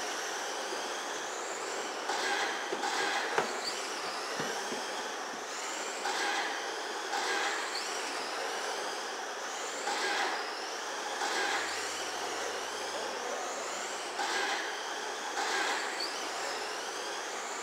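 Two 1/10-scale RC trucks' electric motors whining as they lap a dirt oval, a rising whine coming back every few seconds as they accelerate past. A sharp knock about three and a half seconds in.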